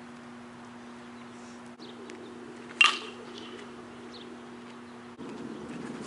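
A metal baseball bat hits a pitched ball: one sharp ping about three seconds in and another right at the end, each ringing briefly. A steady low hum runs underneath.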